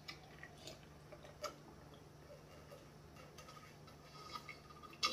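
Faint swallowing while drinking from a cup: soft, scattered little clicks of the throat and lips between sips, with a slightly louder click near the end.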